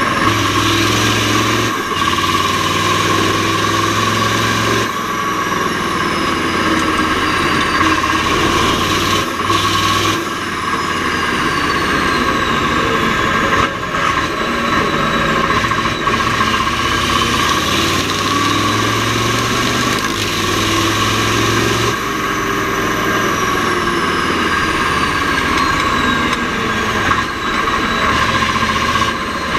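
Mack R-series V8 diesel race truck engine running hard under load, with a steady high whine over it. Its revs rise and fall, dipping briefly every few seconds as it shifts through the Roadranger gearbox.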